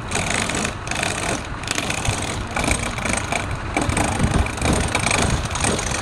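Woodturning lathe running: a steady, loud machine noise with a rough, uneven texture.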